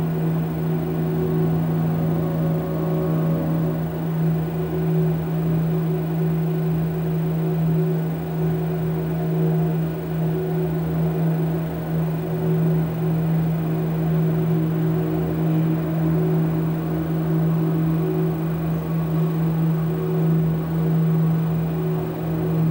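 Steady low electronic drone, a strong deep hum with fainter higher tones held above it, unbroken and only slightly wavering in loudness.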